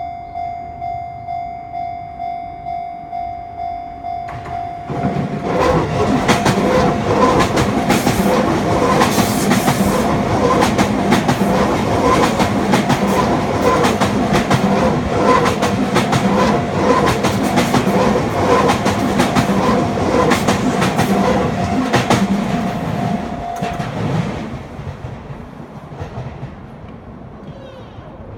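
Japanese level-crossing alarm bell ringing about twice a second. From about five seconds in, a Sotetsu 11000 series electric train passes over the crossing, its wheels clattering over the rail joints in a fast rhythm while the bell keeps ringing underneath. The train noise and bell stop about four seconds before the end, leaving a fading rumble.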